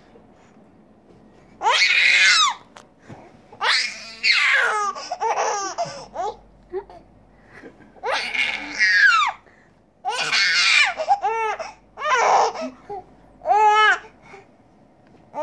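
Baby laughing and squealing in about seven high-pitched bursts with short pauses between, while being lifted up and down in play.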